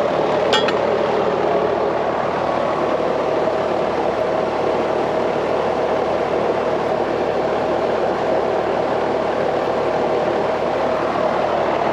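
Steady mechanical hum of running machinery, even in level, with a low droning pitch.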